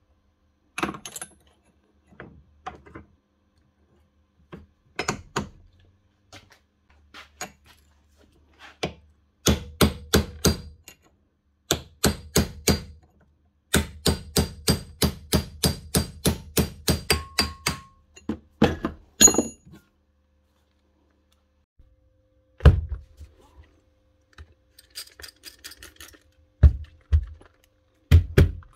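Makita cordless drill driven with its seized chuck clamped in a vise: spells of rapid, even clicking, about five a second, over a low motor hum, the chuck not turning. A few separate heavy thumps come near the end.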